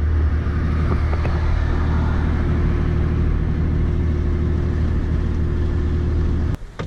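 Steady low drone of a car cruising at constant speed, heard inside the cabin: engine and road noise with a steady hum and its overtones. It cuts off abruptly near the end.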